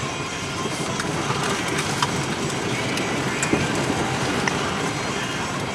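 Car driving over a hail-covered road, heard from inside the cabin: steady tyre and road noise with scattered sharp clicks.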